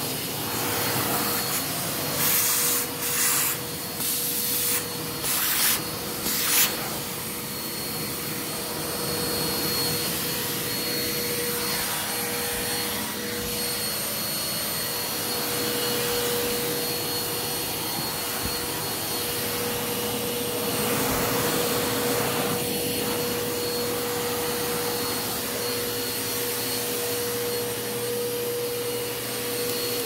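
Small canister vacuum cleaner running steadily with a constant motor hum and a thin high whine, sucking up bugs through its hose nozzle. In the first few seconds there are several brief, louder rushes of suction.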